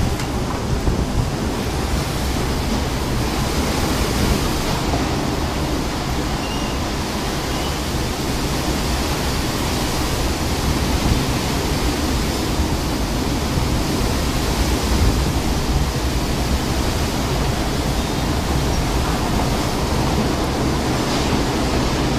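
Strong storm wind and heavy rain making a steady rushing noise, with wind rumbling on the microphone.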